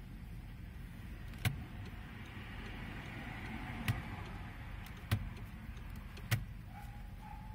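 Audi A3 8P idling, heard from inside the cabin as a steady low rumble, with four sharp clicks as the turn signals are worked, right then left.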